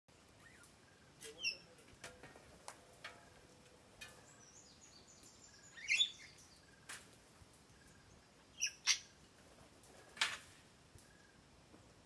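Parrots giving short, separate squawks and chirps, the loudest a rising call about six seconds in. Scattered sharp clicks fall between the calls.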